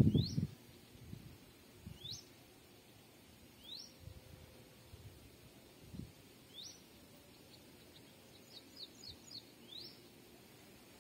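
A bird calling: a short rising note repeated every couple of seconds, with a quick run of short notes near the end. A loud low rumble dies away in the first half second, and faint low thumps come and go.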